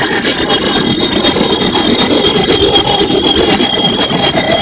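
Space sound presented as a planet's emissions recorded by a spacecraft and made audible: a loud, continuous noisy drone with a thin, steady high tone held above it.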